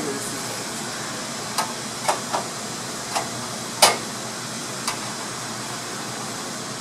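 About six short knocks and clicks, the loudest about four seconds in, as a headliner panel and its support bows are handled and pushed into place overhead inside a squarebody Chevrolet Suburban.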